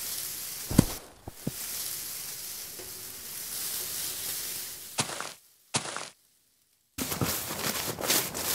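Cartoon sound effects: a steady hiss broken by a few sharp knocks as a giant coin rolls over grass, stopping about five and a half seconds in. After a second of silence, quick running footsteps start near the end.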